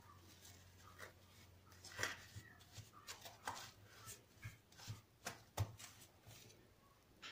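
Clear plastic cling film crinkling as it is wrapped around the top of a milk carton: a faint run of short crackles and taps.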